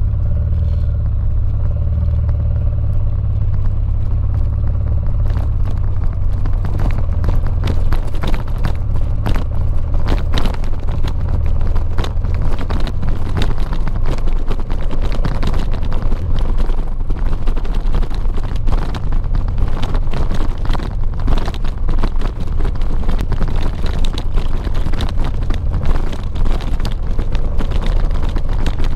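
Honda XL700V Transalp's V-twin engine running while riding a gravel track. From about five seconds in, a dense clatter of knocks and rattles from the rough surface rides over the engine note.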